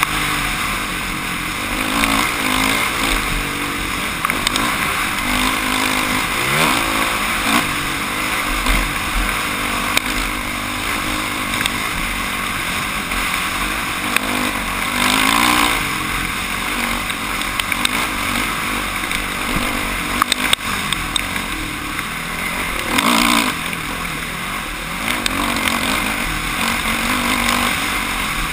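Off-road motorcycle engine revving up and down as the bike is ridden along a trail, with a steady rush of wind and riding noise over the microphone. Twice the engine surges louder, once around the middle and again later on.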